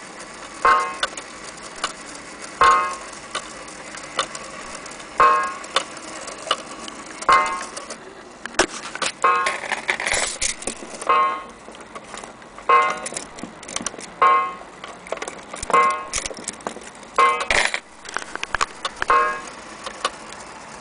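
Mantel clock's strike ringing out about a dozen times, one ringing stroke every one and a half to two seconds, each dying away. The fast ticking of the platform escapement runs between the strokes.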